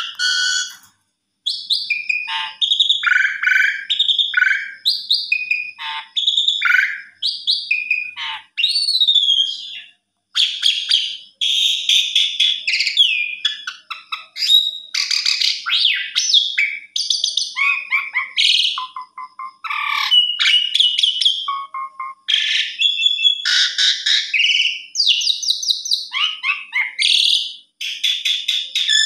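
Asian pied starling (jalak suren) singing a long, varied song of clear whistles, rising and falling slurred notes and fast chattering runs, in short phrases with brief pauses.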